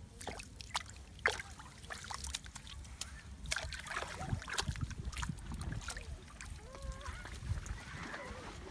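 Water sloshing and splashing in a muddy hole, with scattered sharp knocks and clicks.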